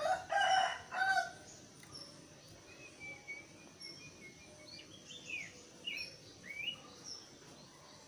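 A jongkangan coklat (brown songbird) calling: a loud, full two-part burst of song right at the start, then quieter thin whistles and a few short downward-slurred notes. A faint high note repeats about once a second behind it.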